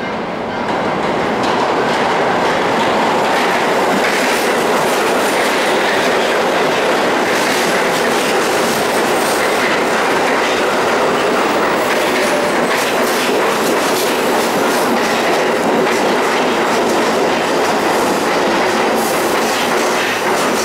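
A Pullman-Standard R46 subway train pulls into an underground station: the wheels on the rails make a loud, steady rumble that builds over about the first second, with clacking from the rail joints running through it.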